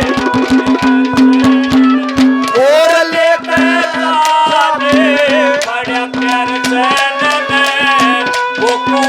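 Live Haryanvi ragni folk music between sung lines: quick drum strokes over a steady low drone, with a sliding melody above.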